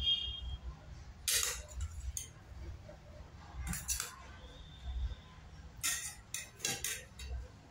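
Metal spoon clinking against a stainless steel bowl and plate while egg curry is served: several sharp clinks spread out, some leaving a brief ring.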